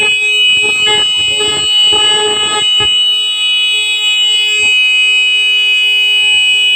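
Alarm buzzer sounding one loud, steady, unbroken tone, the signal for an earthquake drill. Rough noise runs under it from about half a second to nearly three seconds in.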